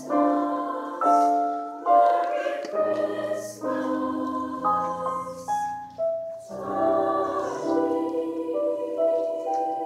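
Girls' choir singing in parts, several voices holding notes together as chords that change every second or so.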